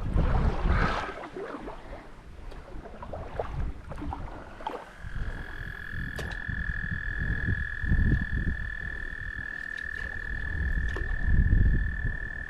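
A frog's long, steady, high trill, starting about five seconds in and holding unbroken, over low buffeting of wind on the microphone.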